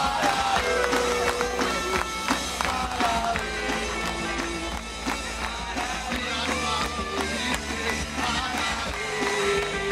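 Live rock band playing an instrumental passage, with drums beating steadily under a melody of held notes.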